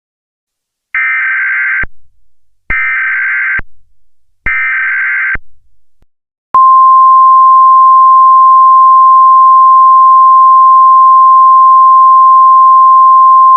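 Emergency Alert System opening: three harsh, buzzy data bursts of about a second each, then a steady single-pitch attention tone that starts about halfway through and holds. Together they are the header and alert tone that start a new emergency alert.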